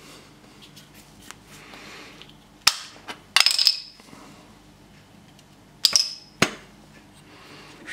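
Hard 3D-printed plastic parts clacking as the bottom cover and pot of a printed urn are taken apart and a small plastic lid is set on a stone countertop. There are a few sharp clacks, one cluster about three seconds in and another about six seconds in.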